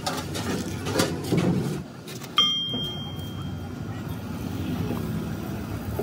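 A metal part struck or dropped with a sharp clank about two and a half seconds in, ringing with a bright tone that fades within about a second. A few duller knocks come before it, over a steady low rumble.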